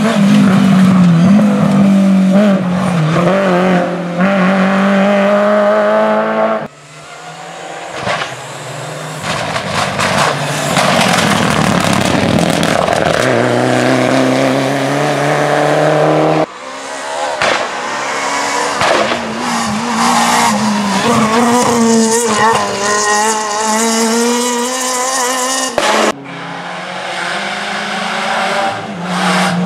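Rally cars passing one after another at full throttle on a tarmac stage, among them a Renault Clio, a Mitsubishi Lancer Evolution and a Peugeot 206. Engines rev hard and climb in pitch through the gears, in four passes that each break off suddenly.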